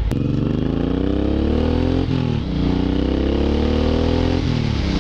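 Suzuki Boulevard M109R's big V-twin engine accelerating under way, its pitch climbing through the revs and dropping sharply at two upshifts, about two seconds in and near the end, then holding steady.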